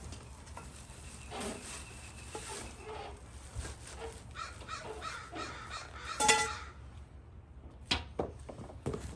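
Packaging being handled during unboxing: rustling and scattered clicks, with a short loud pitched sound about six seconds in and a few sharp clicks near the end.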